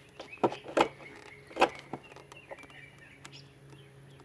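A few sharp clicks and knocks of metal and plastic intake parts being worked loose by hand, the loudest three in the first two seconds. Birds chirp in the background over a low steady hum.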